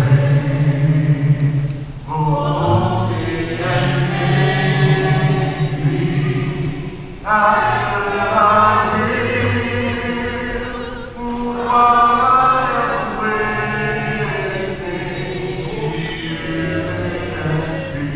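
Church congregation singing the invitation hymn a cappella, many voices together in long held phrases with short breaks between them.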